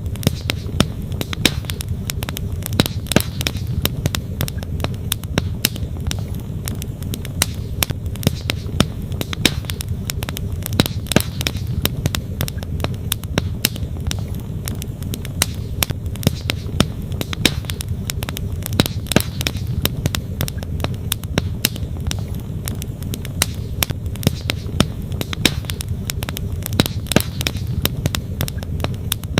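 Wood campfire crackling, with frequent sharp irregular pops and snaps, over a steady low rush of flowing stream water.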